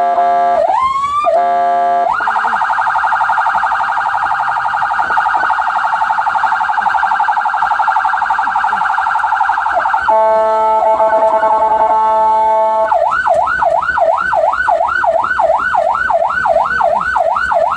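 Ambulance electronic siren cycling through its tones. It starts on a steady horn-like tone, sweeps quickly upward about a second in, and runs a fast warble for about eight seconds. It then returns briefly to the steady tone and ends on a yelp rising and falling about twice a second.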